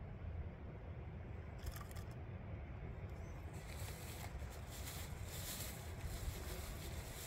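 Plastic bag crinkling and rustling as it is handled, with a short rustle a couple of seconds in and steady crinkling from about halfway through, over a steady low rumble.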